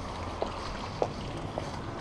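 Footsteps walking at an even pace, nearly two steps a second, over a steady rumble of wind on the microphone.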